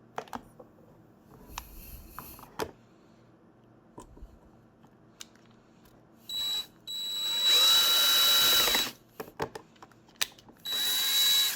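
Small power drill running in three bursts, with a steady high whine: a brief blip about six seconds in, a longer run of about two seconds that rises in pitch as it spins up, and a short run near the end. It is drilling a small hole in the plastic cupholder arm over the pivot pin. A few light clicks of handling come earlier.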